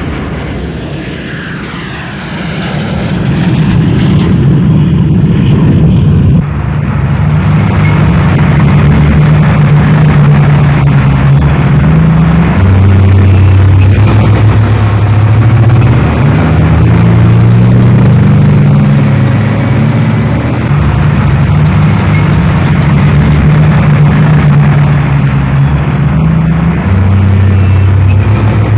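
Column of tanks and self-propelled guns rumbling past, a heavy low engine drone whose pitch shifts up and down, swelling in over the first few seconds and then holding.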